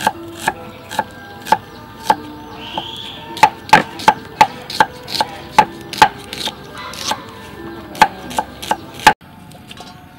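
Cleaver slicing shallots on a wooden chopping board: sharp knocks of the blade striking the board, about two a second and unevenly spaced, stopping suddenly about nine seconds in.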